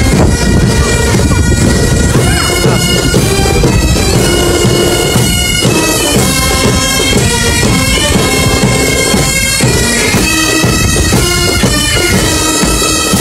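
Marching pipe band playing bagpipes: a melody of held notes that change from one to the next.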